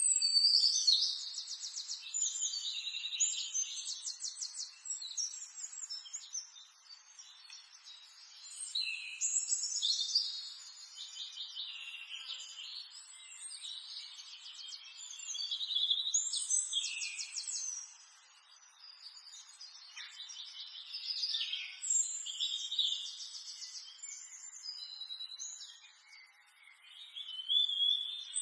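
Birds singing: repeated high, trilled twittering phrases, each lasting a couple of seconds, with short pauses between them.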